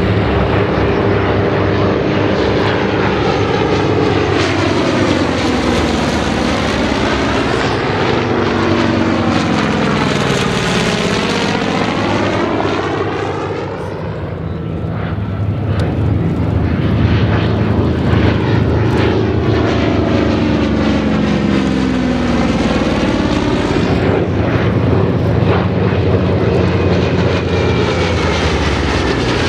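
Radial piston engines of WWII-era propeller warplanes flying past low in a steady, loud drone. As each passes overhead, the sound sweeps down and back up with a whooshing, phasing sound. The drone dips briefly about halfway through, then swells again with the next pass.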